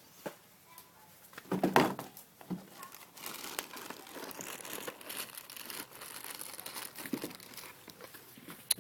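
Crinkling and rustling of a plastic bag being handled, as if to get out treats for hand-feeding a horse. About two seconds in there is a brief, louder pitched sound, and a couple of sharp clicks come at the very end.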